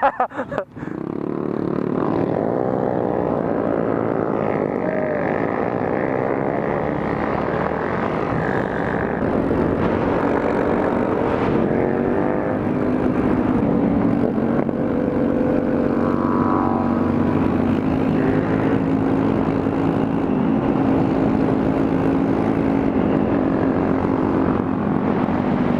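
Honda Grom's single-cylinder 125 cc engine running under way with its muffler fallen off, an open exhaust note. The pitch rises and falls with the throttle in the first half, then holds fairly steady.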